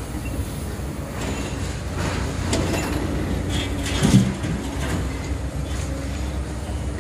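Long-reach demolition excavators running with a steady low engine rumble, with scattered clanks and crunches of concrete and steel being broken; the loudest knock comes about four seconds in.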